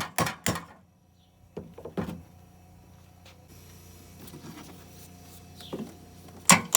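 Metal clicks and knocks from hand tools working on the air conditioner's fan motor mounts: a few sharp clicks at the start, two knocks about two seconds in, then a quick run of clicks near the end.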